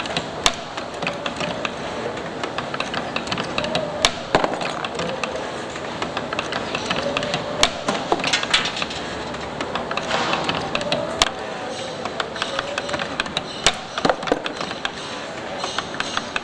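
CNC-620R spring-coiling machine running as it forms extension springs: a steady mechanical noise broken by irregular sharp clicks.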